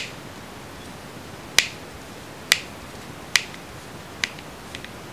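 Sharp, separate small clicks about once a second, five clear ones and a couple of fainter ones near the end, as a precision screwdriver backs a tiny hinge screw out of an eyeglasses frame.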